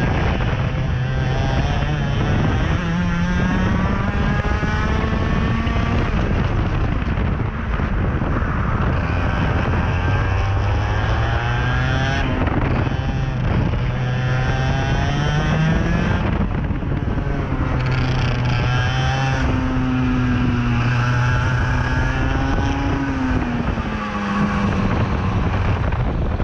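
IAME X30 125cc single-cylinder two-stroke kart engine at racing speed, heard from the driver's seat. It climbs in pitch on the straights and drops away each time the driver lifts off for a corner, several times over.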